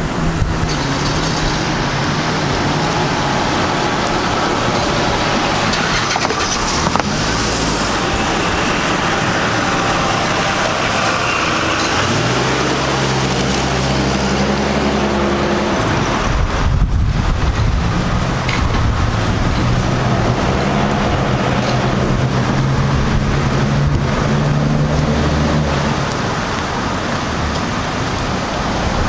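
Street traffic: motor vehicles running close by. An engine's hum comes in for a few seconds near the middle, and another runs through much of the second half.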